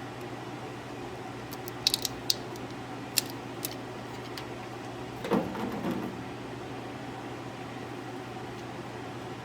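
A steady background hum, with a handful of sharp clicks and taps about two and three seconds in and a brief dull thud and rustle a little past five seconds, from hands working with tools and parts.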